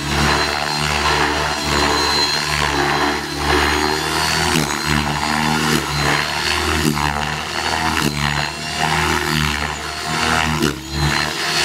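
Trex 600E RC helicopter's motor and rotor blades running hard during aerobatic flight, the sound rising and falling in pitch every second or so as it manoeuvres.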